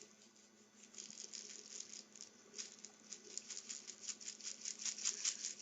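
Green sugar sprinkles rattling in their container as it is shaken and tipped: a fast, light pattering of many tiny ticks that grows busier toward the end.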